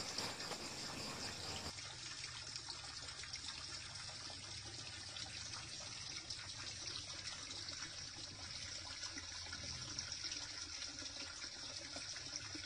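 Water running into a koi pond, a steady splashing of the inflow on the surface.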